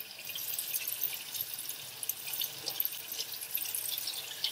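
Water running from a kitchen faucet into a stainless steel sink as soapy hands are rinsed under the stream: a steady splashing hiss with small flickers as the hands move through the water.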